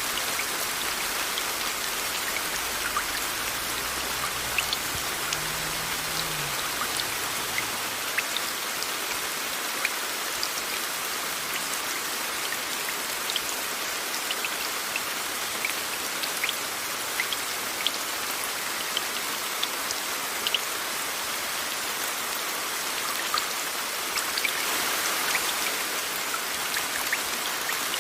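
Steady rain mixed with a white-noise hiss, with many separate raindrops ticking sharply through it. The hiss swells briefly near the end.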